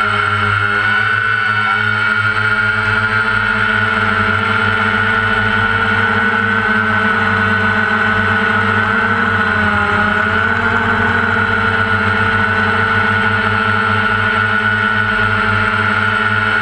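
Multirotor drone's electric motors and propellers whining steadily as heard from the drone's own onboard camera, the pitch dipping briefly about ten seconds in as the motors slow and then pick up again.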